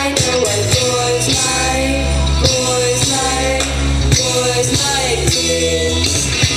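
Music with a singing voice over a heavy bass line and a steady beat, played by a DJ on turntables.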